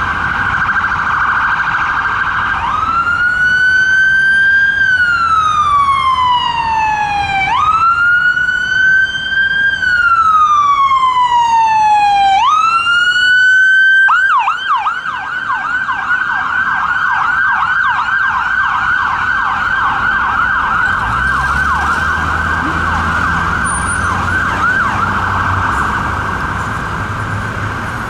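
Ambulance two-tone electronic siren on a passing emergency ambulance. It opens with a rapid yelp, switches to a slow wail rising and falling twice in long sweeps, then goes back to a rapid yelp at about the halfway point. Road traffic engine rumble joins near the end.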